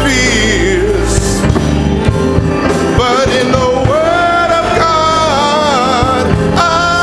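Gospel music in a church service: singing over instrumental accompaniment, with long sustained notes with vibrato in the second half.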